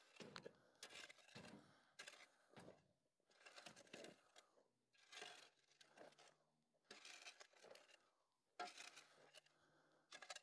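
Faint, repeated crunching scrapes in loose road gravel, coming irregularly about once every second or so.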